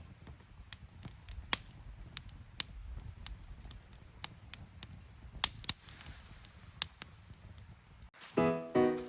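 Wood campfire crackling: sharp irregular pops and snaps over a faint low rumble. About eight seconds in, background piano-like music starts.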